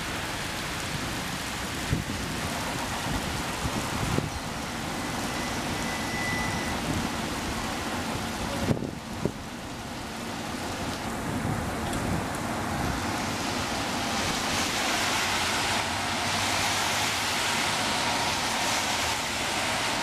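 Steady rain hiss mixed with the idling engine of a fire engine pumper waiting in the station bay, with a few short knocks.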